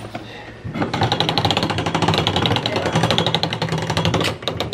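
Coin-operated penny press machine running. Its gears start about a second in with a fast, even rattle over a low hum as the machine rolls a penny flat into a souvenir.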